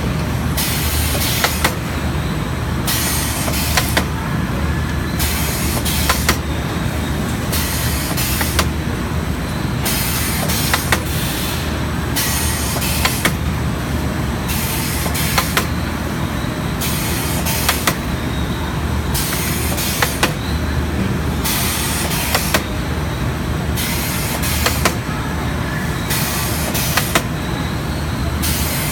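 STEEN ST 828 chicken drumstick processing machine running with a steady low hum, over a loud hiss that cuts in and out every second or so, with sharp clicks scattered throughout as drumsticks are fed through the rollers.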